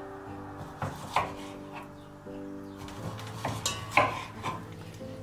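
Chef's knife cutting raw chicken breast and knocking on a wooden cutting board, a few sharp knocks, the loudest about four seconds in, over soft background music.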